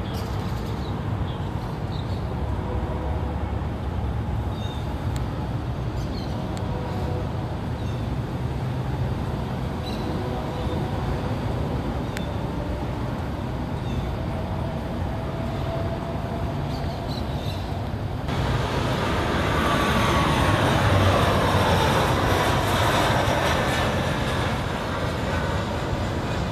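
Steady low rumble, then about two-thirds of the way in a jet airliner passes close: the noise swells suddenly and several engine whines fall steadily in pitch as it goes by.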